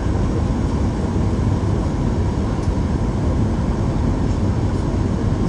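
Steady cabin noise inside a Boeing 737-800: an even, low rumble of its CFM56-7B engines and the air rushing past, heard from a passenger seat.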